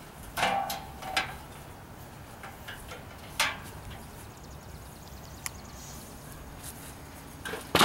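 A few short knocks and clatters as a metal folding chair and wooden boards are picked up and handled, then a sudden loud noise starts right at the end.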